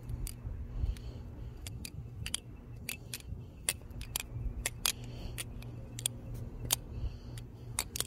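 BBBarfly butterfly knife (balisong) being flipped by hand: its handles and blade clack and click against each other in quick, irregular runs, over a low steady hum.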